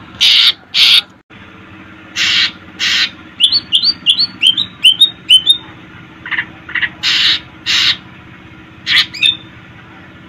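Green leafbird (cucak ijo) singing: pairs of short, harsh, scratchy calls, and a quick run of about eight rising chirps in the middle.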